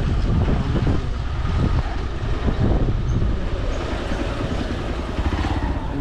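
Motorcycle running on the road, with a steady low rumble of wind buffeting the microphone.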